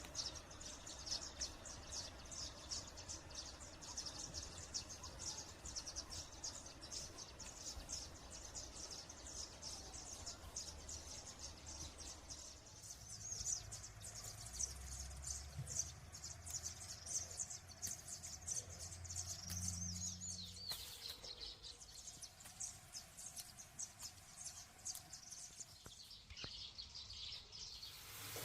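Small birds chirping: a continuous run of quick, high chirps, with a few falling call notes around twenty seconds in.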